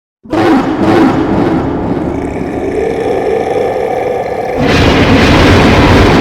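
Monster roar sound effect: a loud, pitched roar starts suddenly just after the start and holds for about four seconds, then a louder, rougher, rumbling roar takes over near the end.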